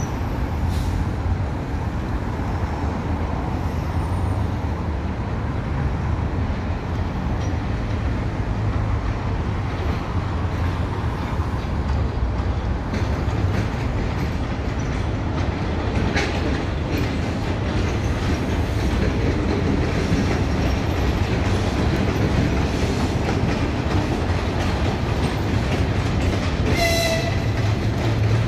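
Passenger train hauled by an EP1 electric locomotive rolling past: a steady low rumble of the coaches with wheels clattering over rail joints and points. Near the end there is a brief pitched tone.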